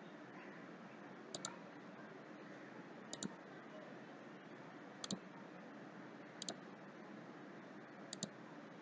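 Computer mouse button clicking five times at intervals of one and a half to two seconds, each click a quick double tick of press and release, over a faint steady hiss.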